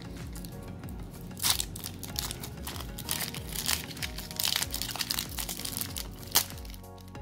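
Foil trading-card pack crinkling and tearing as it is ripped open by hand, in irregular bursts with the sharpest crackle near the end, over steady background music.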